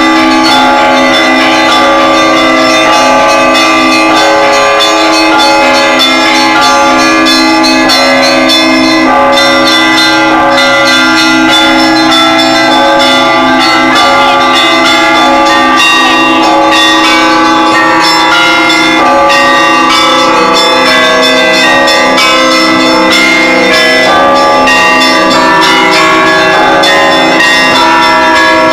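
Russian Orthodox church bells rung by one bell ringer: quick, dense strikes on the smaller bells over the deeper bells, with many ringing tones overlapping without a break.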